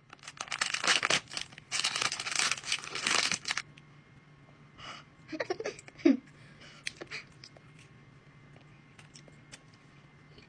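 Plastic wrapper of a strawberry ice pop being crinkled and torn open, for about three and a half seconds. A few short mouth sounds from eating the frozen pop come around five to six seconds in.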